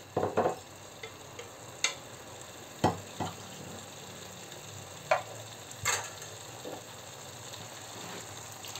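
Paella of rice, chicken and vegetables in chicken stock simmering in a paella pan over medium heat: a steady low sizzle, broken by a few scattered sharp clicks and knocks.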